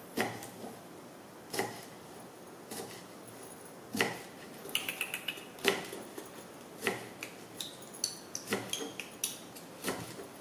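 Kitchen knife chopping green beans on a round wooden chopping block: sharp knocks of the blade striking the wood, roughly one a second, with a quick run of small cuts about halfway through.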